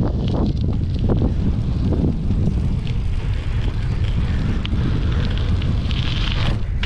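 Wind buffeting the microphone of a camera mounted on a moving BMX bike, over the steady rumble of the tyres rolling along the track, with a few small knocks and rattles from the bike.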